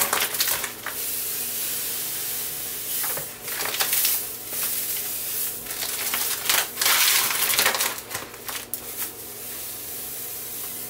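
Granulated sugar pouring from a paper bag into a plastic fermenting bucket of beer-kit wort: a steady hiss that grows louder in two stretches, mixed with the rustle and crackle of the paper bag.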